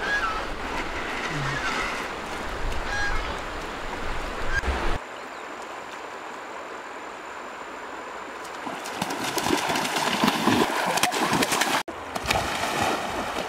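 River water splashing as a person wades through the shallows, with a few faint goose honks in the first few seconds. The splashing grows louder and busier from about nine seconds in.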